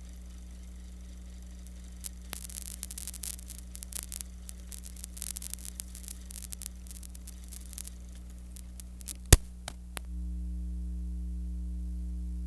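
Steady electrical mains hum with irregular crackling and pops, and a sharp pop about nine seconds in. Shortly after, the hum turns louder and changes pitch.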